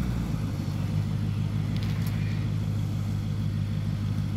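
Four-wheel drive's engine running at low, steady revs as it crawls slowly over a rutted clay and rock track, with a few faint clicks about two seconds in.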